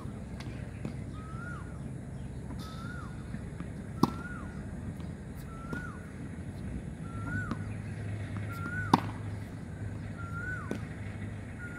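Tennis racket striking balls fed by a ball launcher: two sharp hits about five seconds apart, one about four seconds in and one near nine seconds. Behind them a bird calls over and over, about once a second, each call a short note that rises then drops.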